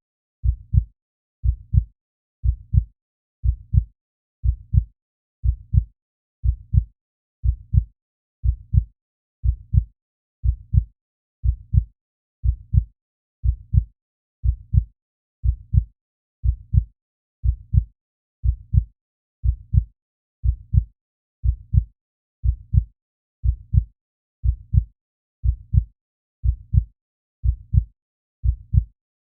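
Heartbeat sound effect: a steady double thump, lub-dub, repeating about once a second, deep and dull with silence between beats.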